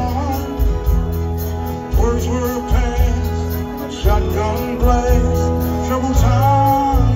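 Live rock band playing a slow song, with a male lead singer's voice over long held bass notes, heard through a phone microphone out in a stadium crowd.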